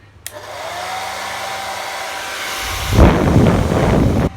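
Visique hair dryer, its grille missing, switched on with a click. Its motor winds up with a rising whine that levels off under a steady rush of air. About two and a half seconds in, the air noise turns much louder and rumbling for under two seconds, then drops back sharply.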